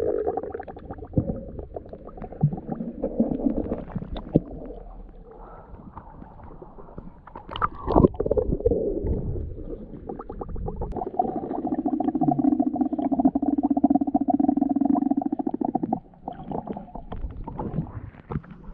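Muffled sound heard through water: low rumbling and gurgling with scattered knocks and clicks, a sharper knock about eight seconds in, while a hand digs into the sandy seagrass bottom. From about eleven to sixteen seconds a steady droning hum sits over it.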